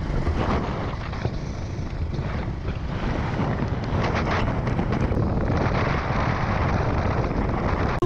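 Motorcycle on the move with steady, heavy wind rush on the camera microphone over a low engine rumble.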